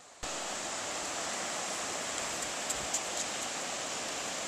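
Beach surf and wind as a steady rushing hiss on the camera's microphone, cutting in suddenly a moment in, with a few light ticks around the middle.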